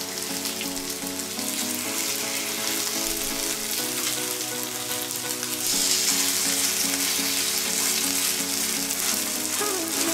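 Pickled-radish and fish-cake batter pancakes sizzling and crackling in cooking oil in a hot nonstick pan. The sizzle grows louder a little past halfway, as a pancake is turned over with a plastic spoon. Soft background music with sustained chords plays underneath.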